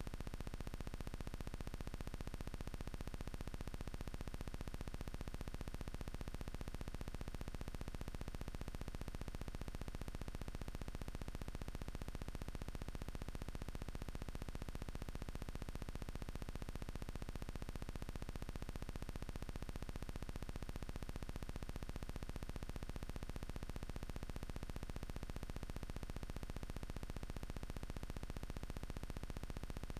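Steady electronic static hiss with a low hum underneath, unchanging throughout, with no gunshots or other distinct sounds.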